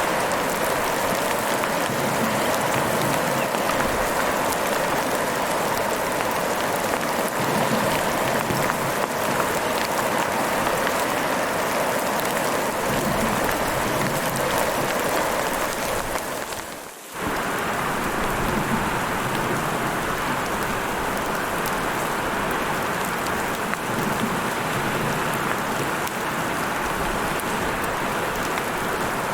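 Heavy rain falling steadily, a dense even hiss of many drops. About 17 seconds in, it briefly fades down to a dip and comes straight back.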